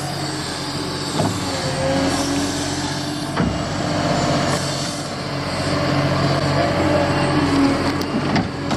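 Diesel engine of heavy construction machinery running steadily, with a couple of sharp knocks about one and three seconds in.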